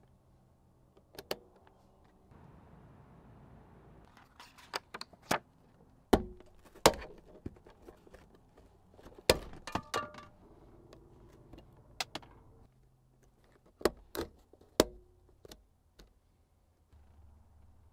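Sharp plastic clicks and snaps from a Toyota 4Runner's overhead dome light as its switch is pressed and its lens housing handled, coming irregularly, about fifteen in all, over a faint low hum.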